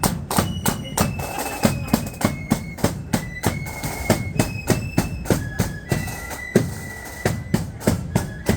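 Marching flute band playing a tune: a high flute melody over a steady beat of bass drum and snare drums.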